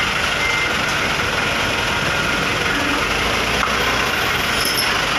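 Dump truck's diesel engine running steadily while the raised bed tips its sand-and-gravel load out through the open tailgate.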